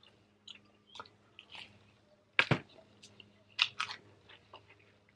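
A person chewing a mouthful of pepperoni pizza: scattered wet mouth clicks and lip smacks, the loudest about two and a half seconds in.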